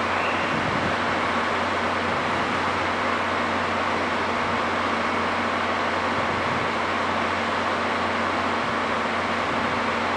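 Steady mechanical hum and whir of a locomotive-hauled passenger train standing at the platform, with a low, even drone underneath.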